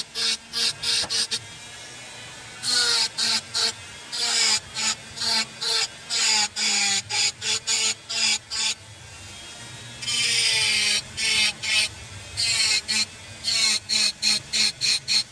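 Rapid runs of short scraping strokes, several a second, broken by brief pauses, with a longer steady hiss about ten seconds in.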